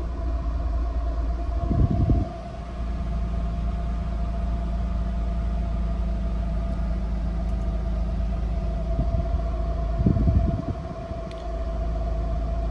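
Mercedes-Benz W124 300E-24's 24-valve straight-six idling steadily with the air conditioning running, heard from inside the cabin. Two short bursts of low noise break in, about two seconds in and again near the end.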